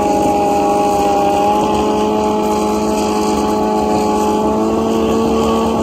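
Drag-racing sport bike engines held at steady revs on the starting line before the launch, pitch creeping up slightly.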